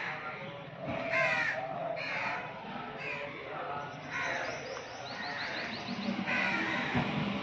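Crows cawing repeatedly, with short harsh calls spaced a second or so apart. A quick run of high chirps comes in about five seconds in.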